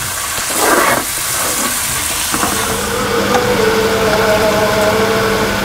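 Chopped onions sizzling as they fry in oil in a nonstick pan, stirred with a spatula. About halfway through, a steady hum with a few held tones comes in under the sizzle.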